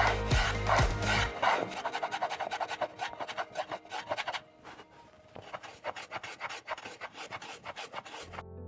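A hand tool worked against cherry wood in quick, repeated rasping strokes, several a second, growing quieter around the middle. The music bed drops out after about a second and comes back near the end.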